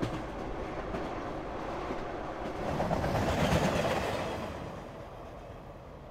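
Passenger train running on the rails with a rumble and wheel clatter that swells to its loudest about three to four seconds in, then fades as it goes by.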